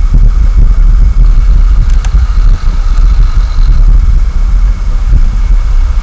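Loud, gusting wind rumble buffeting the microphone, with a faint steady high hum underneath.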